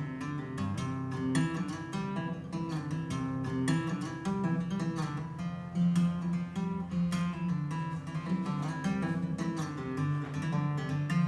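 Acoustic guitar music, a steady stream of quick plucked notes over a bass line, played back over a hi-fi system with Estelon loudspeakers during a listening demonstration.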